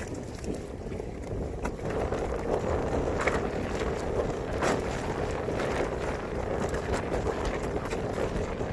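Wind buffeting the microphone over choppy water slapping and rushing along the hull of a Hobie Adventure Island sail kayak under way, growing louder about two seconds in.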